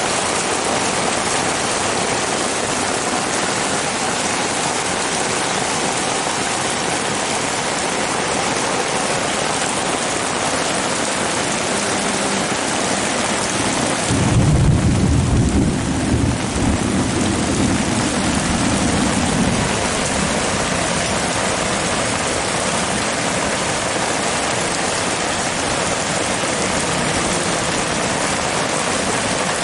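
Heavy rain pouring down on a tarp and the ground, with water streaming off the tarp's edge. About halfway through, a low rumble of thunder rises over the rain and fades over several seconds.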